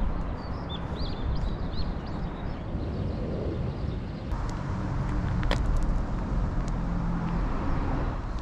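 Outdoor ambience with a steady low rumble, small birds chirping during the first two seconds, and a sharp click about five and a half seconds in.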